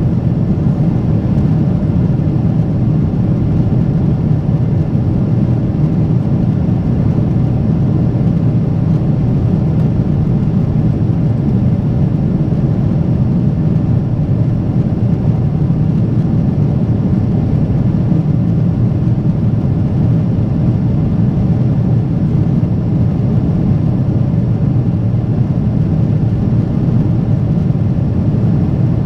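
Boeing 777-300ER cabin noise: the steady rumble of its GE90 jet engines and rushing air, heard inside the cabin by the window, deep and unchanging.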